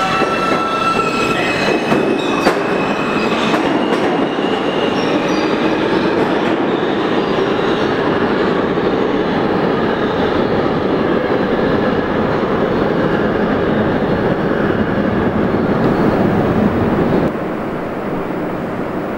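New York City Subway L train pulling out of an underground station: a high, pitched whine in the first few seconds over the steady rumble of the cars and wheels on the track. About 17 seconds in the rumble drops away to a quieter station hum.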